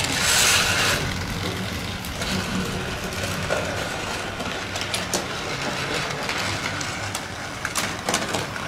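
Battery-powered toy bus running along a plastic track, its small motor whirring steadily, with a few short plastic clicks of toy cars being handled.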